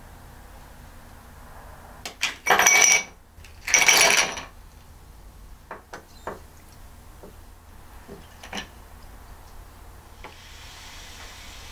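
Ice and glassware clattering in two short, loud bursts, with the glass ringing, then a few light clinks. Near the end a steady hiss begins.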